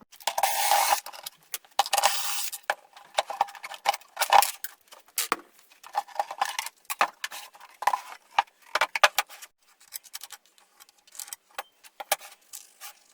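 Hand work on wood and tools: two longer scraping strokes, then a run of short, irregular scrapes and knocks.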